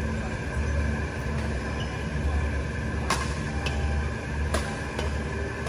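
Badminton rackets striking a shuttlecock in a quick rally: four sharp hits in about two seconds, starting about halfway through, over a steady low hum.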